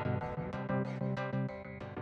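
Background music with a regular run of pitched, plucked-sounding notes, growing steadily quieter as it fades out.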